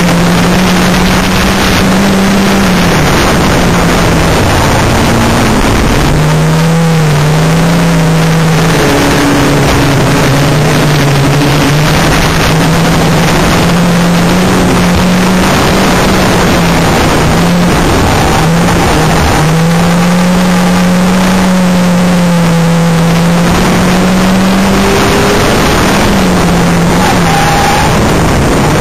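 Banger race car's engine running hard, heard from inside the car over a dense noise of rattling and road noise. Its note falls and rises again several times as the throttle is lifted and reapplied through the corners.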